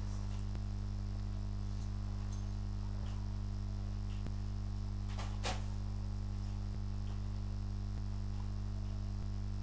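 Steady low electrical hum with several fixed overtones, the kind of mains hum a recording setup picks up. Faint ticks come a little over once a second, and a short rustle or click comes about halfway through.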